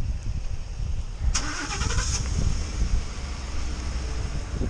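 Car driving, heard from inside the cabin: a steady low road and engine rumble, with a brief hiss about a second in.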